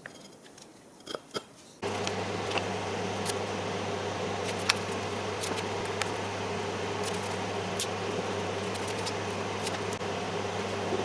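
An electric wood router's motor switches on about two seconds in and runs at a steady speed, with scattered sharp ticks over it. A couple of faint clicks come just before it starts.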